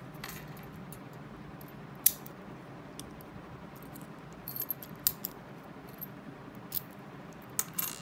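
SanHuang 35 mm brass padlock handled with its keys on their ring: sharp metallic clicks and small jingles of the keys. The loudest click comes about two seconds in, and a cluster of clicks follows in the second half.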